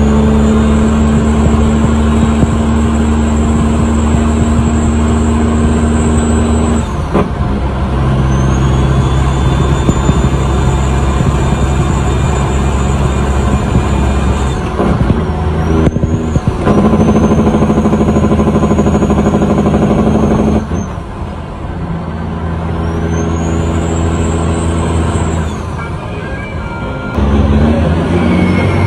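Heavy diesel truck engine pulling under load, heard from inside the cab, with a high turbo whistle that rises and holds with the revs. The engine note breaks and drops four times, a few seconds apart, as the driver shifts through the gears of the multi-speed manual transmission.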